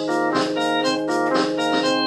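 Background organ music: chords of held notes that change every fraction of a second over a steady beat.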